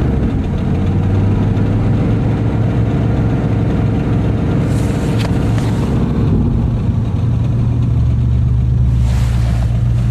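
Chevrolet Camaro's engine running just after a cold start below freezing, held at high revs, then settling to a lower, deeper idle about six seconds in.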